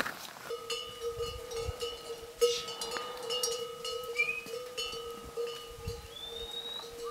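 A steady, bell-like ringing tone that comes in about half a second in and holds on. Short rising whistles sound above it about four seconds in and again near the end.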